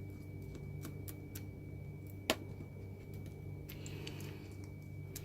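Faint small clicks and taps of tools on an open iPhone's internal parts, with one sharper click a little over two seconds in, over a steady low hum.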